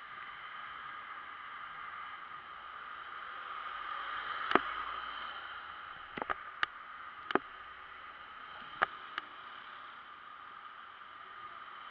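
Steady wind and road noise on the camera of a moving motorbike, with a scattering of sharp knocks between about four and nine seconds in as the camera is turned on its mount; the first knock is the loudest.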